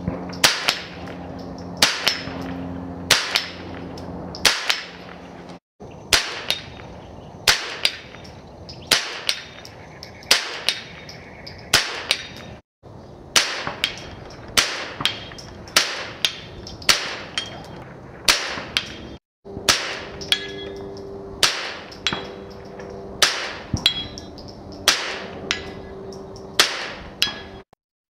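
A long run of rifle shots, each a sharp crack with a short tail, about one a second and some thirty in all. The run stops dead three times, briefly, as if cut.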